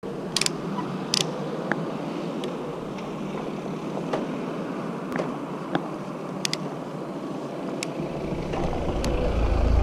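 Street traffic noise heard from a moving bicycle, with scattered sharp clicks and rattles. Near the end a low rumble builds and grows louder.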